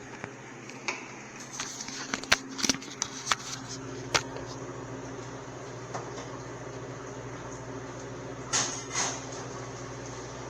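A series of sharp knocks and clatters, bunched a couple of seconds in, with two short scuffing bursts near the end, over the steady hum of kitchen machinery.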